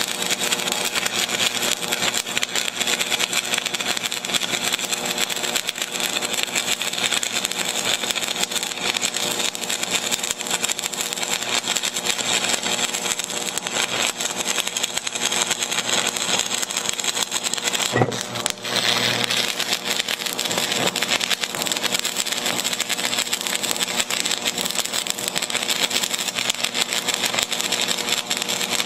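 Stick-welding arc of a 3/32-inch 6013 electrode on DC electrode positive at about 65 amps, laying a bead on 14-gauge sheet steel: a steady dense crackle, broken by a sharp crack and a brief drop about eighteen seconds in. The heavy spatter is typical of 6013 run on electrode positive, which trades spatter for deeper penetration.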